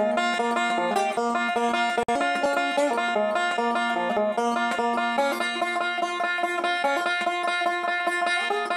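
Gold Tone resonator five-string banjo played with thumb and finger picks, a fast, continuous three-finger roll of bright plucked notes, with one momentary dropout about two seconds in.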